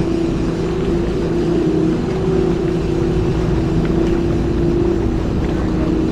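Fishing boat's motor running at a steady speed: a constant drone with a low rumble underneath.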